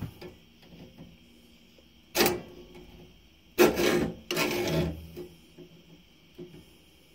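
A few clattering and scraping handling noises from a hacksaw and a lightly clamped carburetor: a short knock about two seconds in, then two longer rough scrapes a little before the five-second mark.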